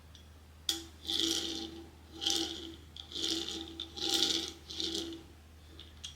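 A sharp click, then about five separate rubbing, scraping strokes with a faint squeak in them: blind-box packaging being handled and rubbed during unboxing.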